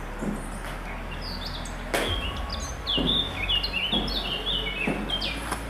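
A songbird singing: a run of quick chirping notes that step down in pitch, starting about two seconds in and lasting about three seconds. Footsteps land about once a second underneath.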